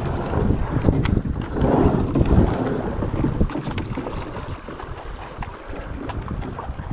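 Wind buffeting the microphone over the rush and splash of water along a coastal rowing boat's hull as it is rowed through moderate chop. The wind and water noise eases off over the last few seconds.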